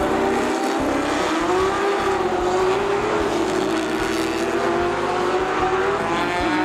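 Historic sports-racing cars, Jaguar E-types among them, driving past one after another through a corner on a wet track. Their engine notes rise as they accelerate away and fall between cars.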